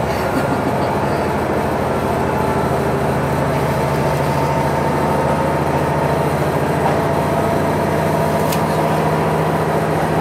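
Inside a local train pulling away from a station: a steady motor drone with low humming tones over the rumble of wheels on rail.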